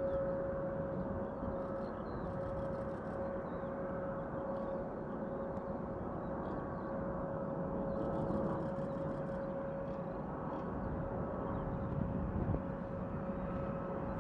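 Jet engines of a Boeing 767-300 freighter on final approach at low power: a steady distant rumble with a constant whine.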